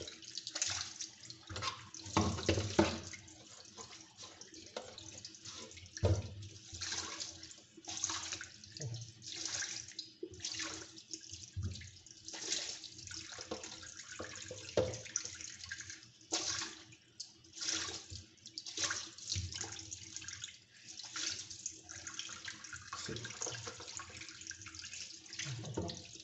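Tap water running into a sink while a coarse canister-filter foam sponge is rinsed and squeezed under the stream, with irregular splashing surges as the water hits the sponge and hands.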